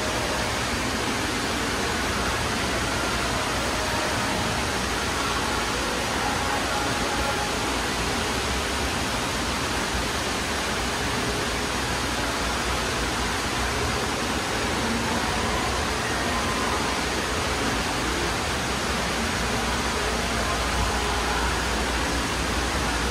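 Steady, even rushing noise that does not change, with faint, indistinct tones from the background over it.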